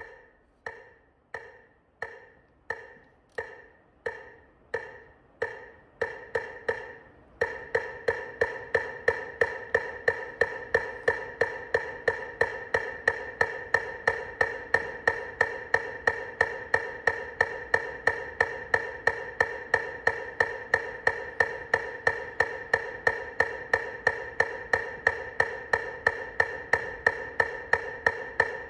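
Metronome clicking at a steady pulse, about one and a half clicks a second. About seven seconds in, a steady tone starts and the clicks speed up to about two and a half a second.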